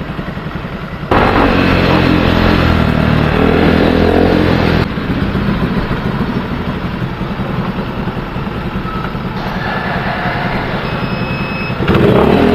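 Motorcycle engine running and accelerating, its pitch rising for a few seconds, then running on more steadily. The sound changes level abruptly several times, with a brief high tone near the end.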